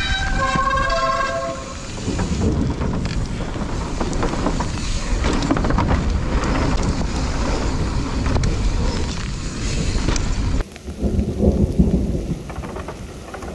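Heavy pouring rain with a deep, continuous rumble, in a thunderstorm. About ten and a half seconds in the sound changes abruptly to a duller, uneven rumble.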